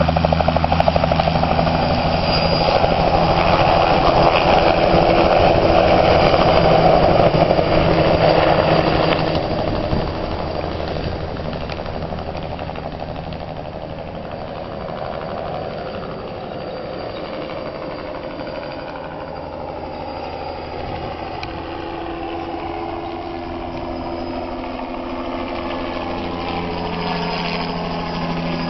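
Light helicopter's rotor and engine running loud and steady while it hovers low close by, falling off after about ten seconds as it flies away. It grows louder again over the last ten seconds as it comes back overhead, the pitch sliding as it passes.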